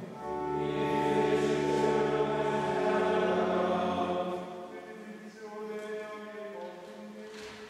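Latin plainchant sung in a Mass: several held notes sung fully over a low sustained note for the first four seconds or so, then fading to quieter, thinner held notes.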